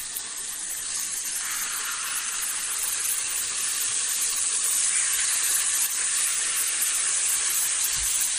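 Pepper-crusted steaks frying in clarified butter in a pan: a steady sizzle that grows slightly louder.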